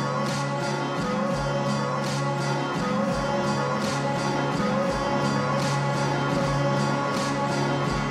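Looped ambient neo-psych music played from an Elektron Octatrack sampler: a sustained low drone under a slow, steady beat with light high percussion ticks.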